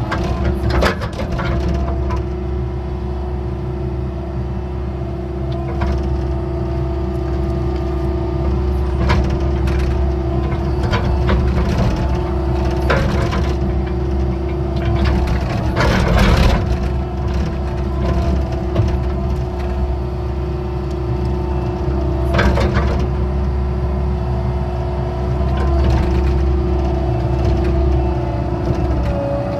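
Excavator's diesel engine running steadily with a constant hum, while the bucket digs a ditch with a series of sharp knocks and cracks, the biggest a little past halfway.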